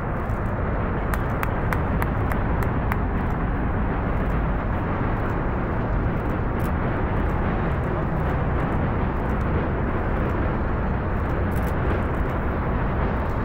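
Four RS-25 hydrogen-fuelled rocket engines of the SLS core stage firing together during a static hot-fire test, a steady low rumble with sharp crackles scattered through the first few seconds.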